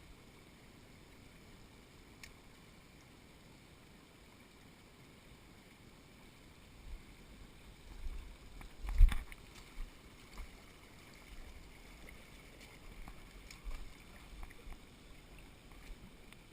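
Steady faint rush of mountain torrent water. From about seven seconds in there is a run of low thumps and knocks, the loudest about nine seconds in.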